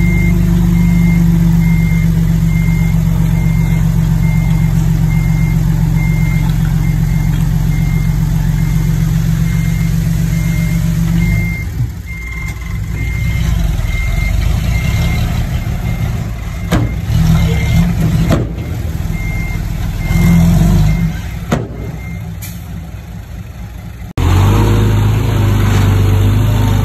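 Heavy diesel earthmoving machine running, with a backup alarm beeping in a steady run, the warning that a machine is reversing. About halfway in the engine note drops and a few sharp knocks follow; the beeping stops, and near the end a louder engine sound cuts in abruptly.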